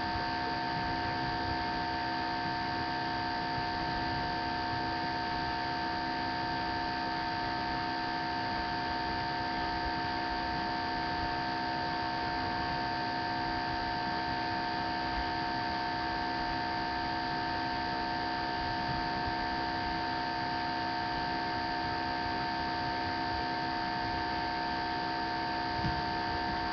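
Steady electrical hum and hiss from a webcam's audio: several unchanging tones over a constant noise floor, with no other sound.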